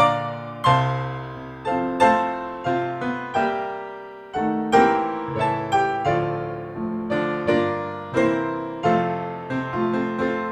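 Piano music: a gentle melody of struck notes, each ringing and fading before the next.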